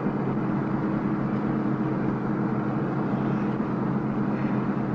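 Car engine running steadily at cruising speed, with the even rush of tyres and wind, heard as a steady drone from inside the moving car.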